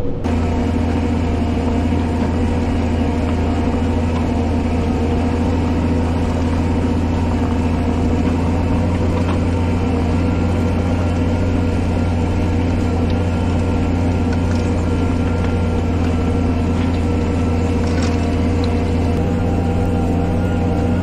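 Fendt tractor's diesel engine running at a steady pitch under load while pulling a plough.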